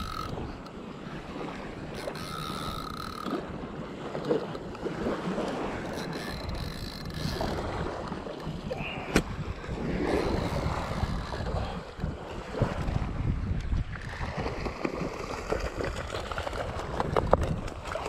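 Wind buffeting the microphone over small waves washing on the beach, with the handling clicks of a spinning reel being cranked to bring in a hooked stingray.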